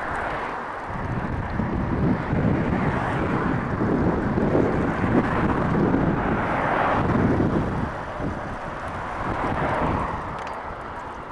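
Wind buffeting a GoPro's microphone on a moving bicycle in strong gusts. It swells louder for several seconds through the middle, then eases off near the end.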